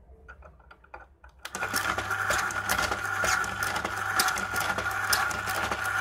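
ZCUT-2 automatic tape dispenser running, its motor humming as it feeds, cuts and sticks pieces of tape around the turning carousel, with rapid clicking from the cutter. It starts about a second and a half in, after a few light clicks.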